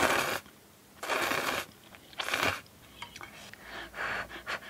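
Three short puffs of breath blown onto hot instant ramen noodles held up on chopsticks to cool them, about a second apart, followed by a few softer small sounds near the end.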